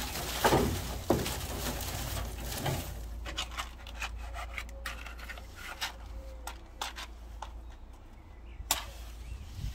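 Dry twigs and thin branches rustling, snapping and scraping as they are laid by hand over crumpled newspaper in a charcoal grill. The crackles and clicks come thick in the first few seconds, then thin out, with one sharp snap near the end and a steady low rumble underneath.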